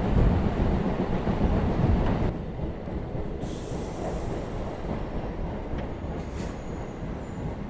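Electric local train running at speed, with a loud rumble and rush of wheels and air. The noise drops about two seconds in as the train draws alongside a station platform. There is a short burst of high hiss near the middle and a faint thin squeal near the end.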